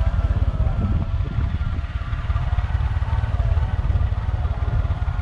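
Motorcycle running steadily while being ridden, with heavy wind rumble buffeting the microphone and a faint steady whine above it.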